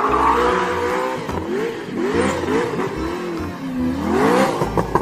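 A drift car's engine revving up and down again and again as the car slides sideways, with tyre squeal underneath.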